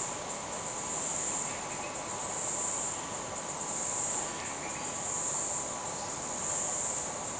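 Rainforest insect chorus: a steady high-pitched buzz that swells and fades about every second and a half.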